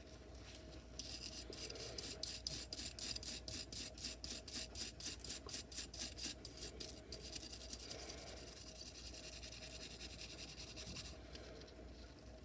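Stiff plastic brush scrubbing rust off a steel knife blade: quick back-and-forth strokes, about four a second, then a steadier scrub that stops near the end.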